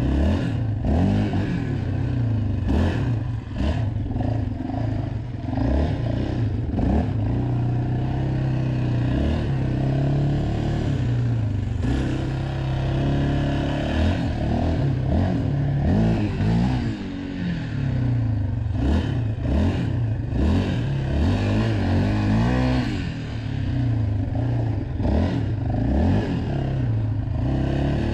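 Yamaha Raptor 700 ATV's single-cylinder four-stroke engine running under way, its revs rising and falling again and again as the throttle is worked, with some clatter over bumps.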